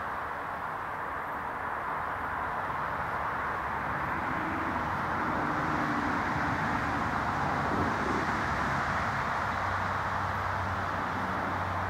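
Steady outdoor background rumble of distant vehicle traffic, growing slightly louder, with a low hum coming in over the last few seconds. The crossing's warning bell is not ringing.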